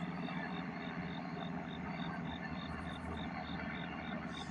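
Crickets chirping in a steady high pulse, about three chirps a second, over the steady low drone of a distant helicopter.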